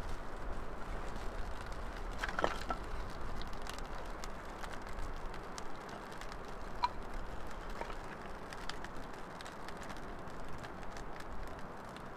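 Small campfire of split kindling crackling with scattered sharp pops as it catches, over a steady rushing background, with a louder knock of wood about two and a half seconds in as sticks are laid on.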